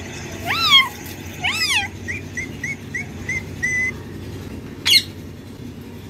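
Indian ringneck parakeet calling: two rising-and-falling squawks in the first two seconds, then a quick run of about seven short, even chirps, and one sharp call about five seconds in.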